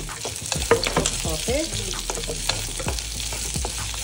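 Chopped onions sizzling in hot olive oil with cumin seeds, stirred with a wooden spatula that knocks and scrapes against the pot many times, with a few short squeaks about a second and a half in.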